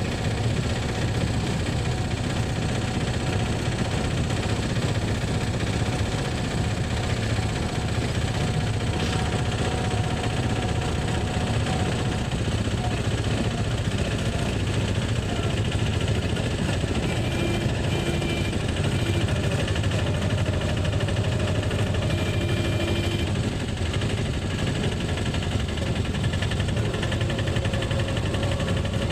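Auto-rickshaw engine running under way, heard from inside the open cab: a steady low drone at an even level throughout.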